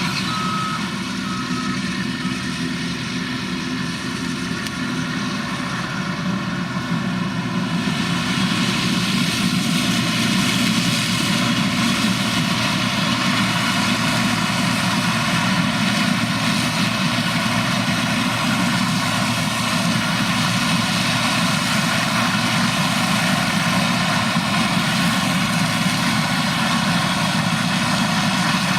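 Heavy farm machinery running steadily under load. A reversing alarm beeps for the first second or so, and the engine and machine noise grows louder and fuller about eight seconds in.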